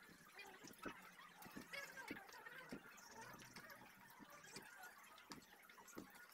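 Faint, irregular taps of a knife blade against a plastic chopping board as food is sliced by hand, about one or two a second.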